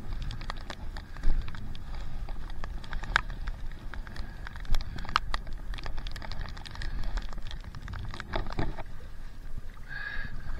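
Water splashing and dripping around a stand-up paddleboard being paddled: many irregular small splashes and drips over a low rumble of wind on the microphone.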